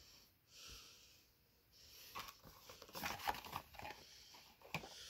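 Faint handling noise of compression shorts and a cardboard product box: rustling and crinkling with small clicks, picking up about two seconds in and loudest around the middle, with one sharp click near the end.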